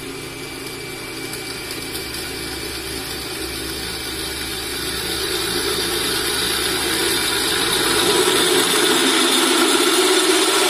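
Bench drill press with a 3/4 hp motor boring a 15 mm hole through a metal bar without coolant, running under load without slowing or stalling. The cutting noise grows steadily louder as the bit goes deeper.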